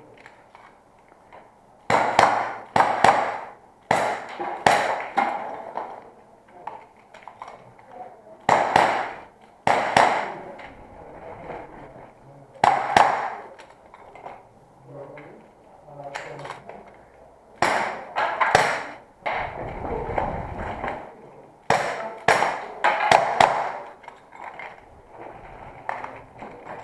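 Gas airsoft revolver firing in short strings of two to four sharp shots spread through the course of fire, with ringing pings from pellets striking metal targets.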